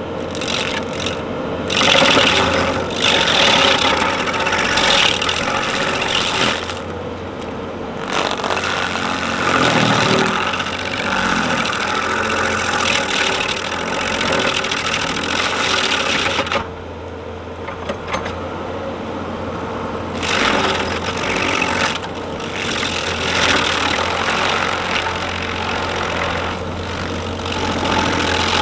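Engine-driven landscaping equipment running, a steady engine drone under bursts of cutting noise that rise and fall, with a brief lull about two-thirds of the way through.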